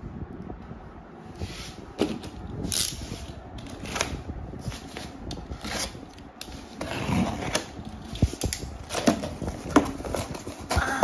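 A box cutter slicing through packing tape on a cardboard box, then the cardboard flaps being pulled open: an irregular run of scrapes, knocks and rustles.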